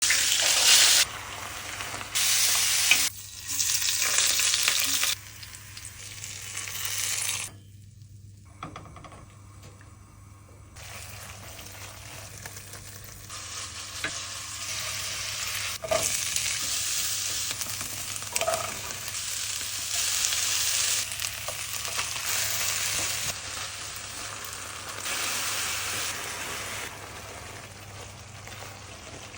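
Food sizzling and frying in a hot pan, the sizzle jumping louder and quieter in abrupt steps.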